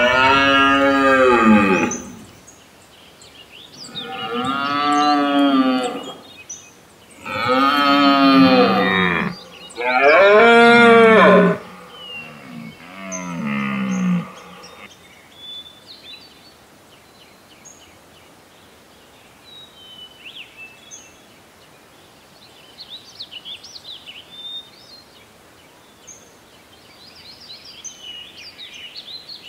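Five long, loud lowing calls from a large hoofed animal, each bending over and falling in pitch, spaced a second or two apart. In the second half only faint, short bird chirps are heard.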